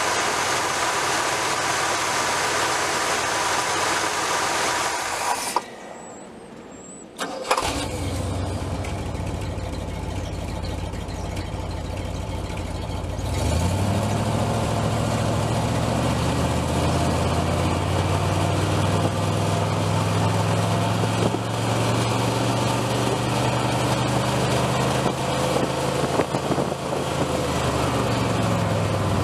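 1970 Cadillac De Ville's 472 V8 running, first from under the hood, then at the tailpipe. After about five seconds the sound drops out for roughly two seconds and comes back suddenly. About halfway through the engine speed rises smoothly to a higher, steady speed, held until it eases back down near the end.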